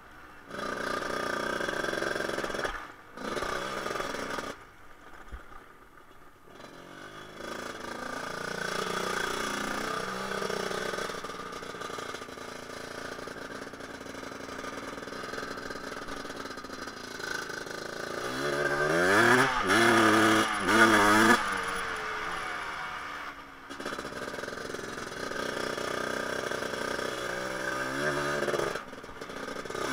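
Honda TRX250R ATV's two-stroke single-cylinder engine, newly installed, running on a trail ride and rising and falling in pitch as the throttle is opened and closed. It drops away twice in the first few seconds and revs hardest about two-thirds of the way through, climbing and falling in pitch several times.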